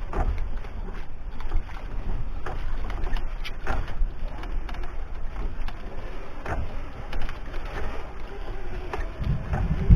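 Small fishing boat rocking at sea: a steady low rumble of wind and water against the hull, with scattered short knocks.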